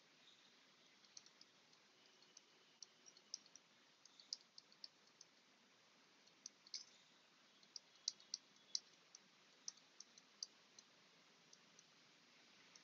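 Near silence broken by about a dozen faint, sharp clicks of a stylus tapping on a tablet while handwriting figures, irregular and clustered between about three and ten seconds in.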